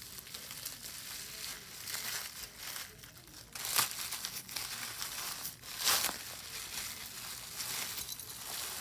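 Plastic cling wrap crinkling and rustling as it is handled and pulled apart, with a couple of louder crinkles about four and six seconds in.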